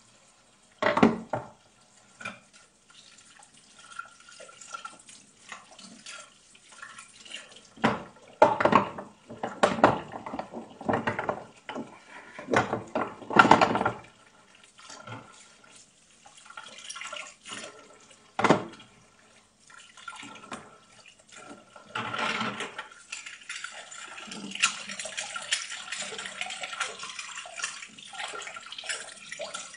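Dishes being washed by hand in a kitchen sink: scattered clatters of plates, glasses and cutlery knocking together, then about three-quarters of the way in a tap runs steadily.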